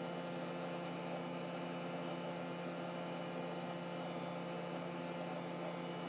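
Steady electrical hum with a light hiss from running workbench equipment, unchanging throughout.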